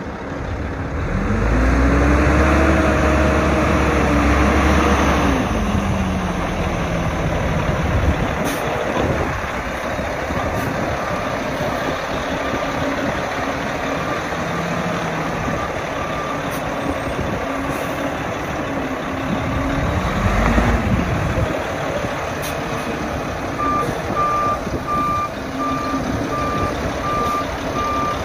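Brandt road-rail truck's diesel engine revving up and settling back twice as it manoeuvres on the rails, with a deep rumble under the first rev. Its reversing alarm beeps steadily, faint at first and loud for the last few seconds.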